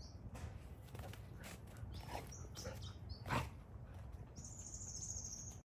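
Two dogs play-fighting: scuffling paws and bodies, with one short, louder dog sound about three and a half seconds in. Birds chirp high in the background.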